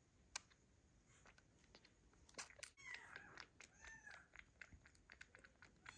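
Newborn kitten suckling from a milk bottle: soft wet clicks and smacks at the nipple, with a few small high squeaks from about halfway in.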